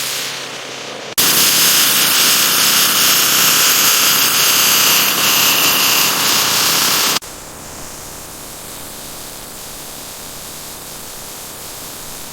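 A loud, steady hiss that starts abruptly about a second in and cuts off suddenly about six seconds later, followed by a quieter steady hiss.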